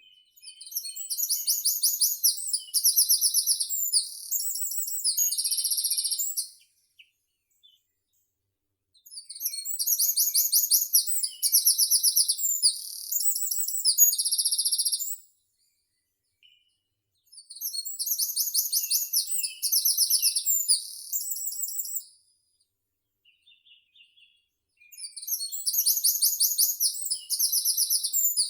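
A songbird singing four long, very high-pitched phrases of rapid trilled notes, each about six seconds long, with pauses of two to three seconds between them.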